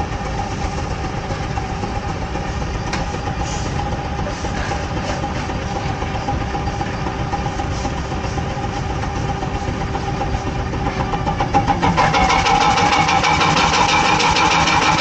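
Steam traction engine running belted under load, its exhaust chuffing in a fast, steady beat. About twelve seconds in it gets louder, with more hiss.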